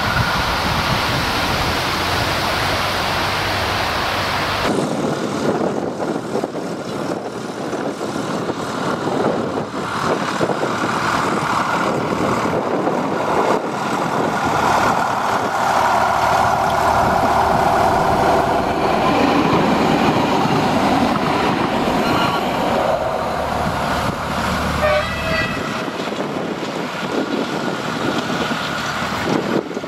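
Narrow-gauge diesel trains of the Zillertal Railway running on the line: engine and wheels on the rails, the sound changing abruptly about five seconds in.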